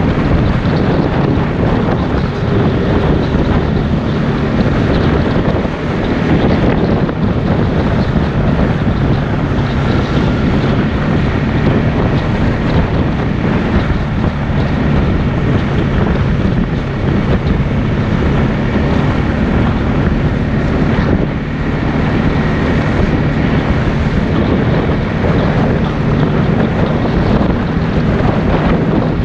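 ATV engine running steadily while riding, its low drone constant throughout, with heavy wind noise buffeting the microphone.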